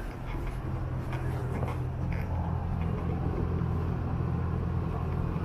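A steady low machine hum sets in just after the start and holds throughout.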